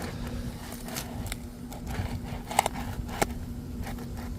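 Asphalt shingle being pried up from its sealed course: scattered crackling and scraping clicks, with two sharp snaps a little past the middle, as the brittle shingle pushes through and tears instead of releasing, the sign of a shingle failing a repairability test. A faint steady hum runs underneath.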